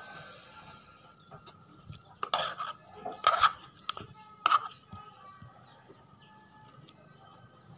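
Eating sounds: a metal spoon knocking and scraping in a plastic bowl and chewing of spicy pickled Dayak cucumber, with a few short, sharp bursts between about two and five seconds in.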